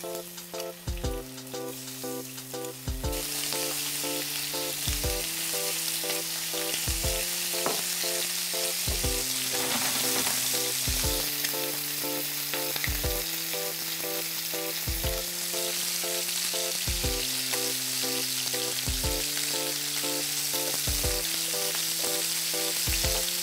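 Chicken thigh pieces frying skin-side down in hot olive oil in a frying pan: a steady sizzle that swells about three seconds in and then holds. Background music plays underneath.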